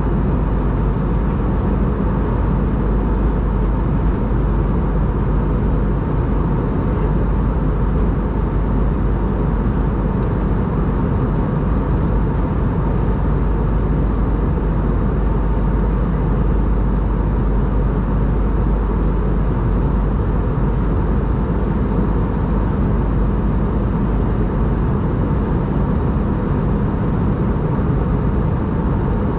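Steady cabin noise of an Airbus A320 in flight, heard inside the cabin: a constant drone of engines and airflow, strongest in the low end, with a faint steady high whine over it.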